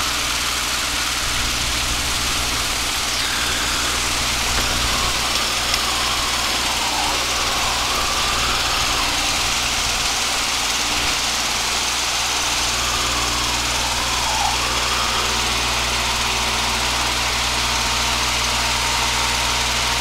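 Piper PA-22/20-135 Pacer's 135-horsepower four-cylinder engine and propeller at takeoff power, a steady drone heard inside the cabin during a short-field takeoff from grass. A low rumble under it eases about twelve seconds in as the plane lifts off.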